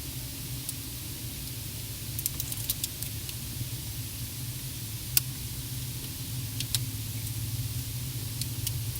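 Sharp, scattered clicks and crackles in a car's cabin: a quick cluster about two seconds in, a single louder click about five seconds in, and a few more later. They sound over a steady low engine hum.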